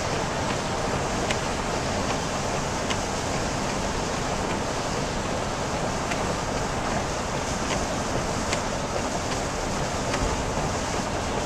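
Steady rush of heavy rain and tyre spray heard from inside a moving car on a wet freeway, with scattered sharp ticks.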